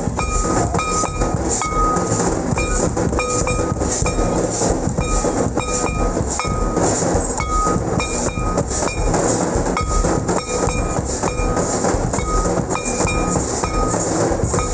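Live drumming with metallic clinks in a steady, driving beat, loud and unbroken, with short ringing notes repeating on the beat.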